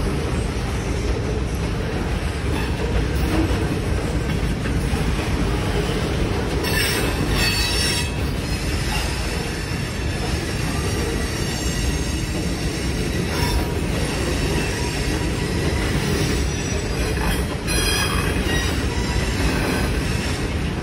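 Freight train cars rolling past over the crossing, a steady rumble of steel wheels on rail. Short bursts of high-pitched wheel squeal come in a few times, around a third of the way in and again near the end.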